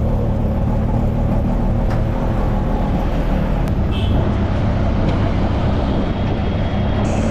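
A motor vehicle running steadily, a loud continuous low rumble, with a brief high tone about four seconds in.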